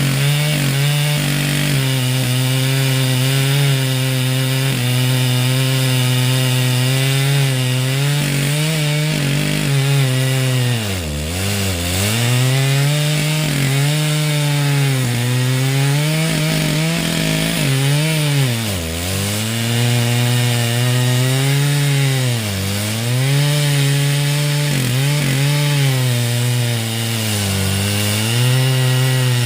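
Stihl MS 881 single-cylinder two-stroke chainsaw running at full throttle while milling a lengthwise cut through Douglas fir. Its engine pitch sags several times as the chain loads up in the cut, then recovers.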